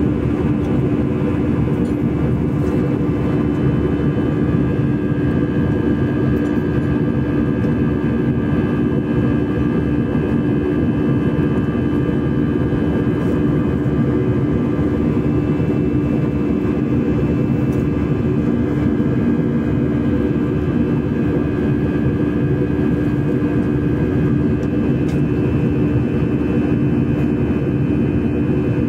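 Steady cabin drone of an Airbus A320 in flight, heard inside the cabin beside the engine: jet engine hum and airflow rush with a steady tone running through it.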